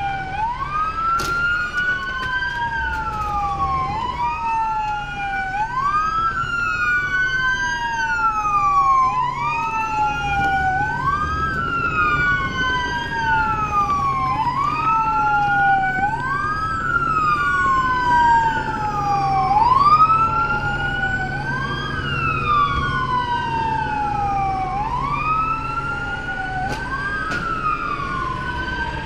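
Police car siren on wail, rising quickly and falling more slowly about every two and a half seconds, over a steady low hum.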